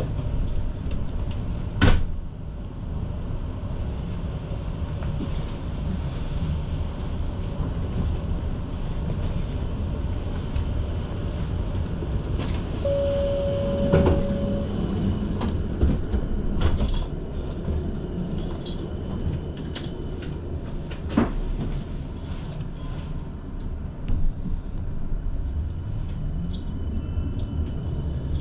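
Inside a Helsinki city tram in motion: a steady low rumble of the running tram, broken by occasional sharp knocks and clunks. About halfway through, a single steady beep lasts nearly two seconds.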